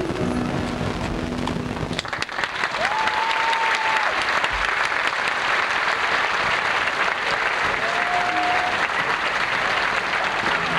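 The dance music ends on a held low note about two seconds in, and audience applause follows, a steady dense clapping that goes on to the end. Two short whistled tones rise above the clapping, one near the start of the applause and one later.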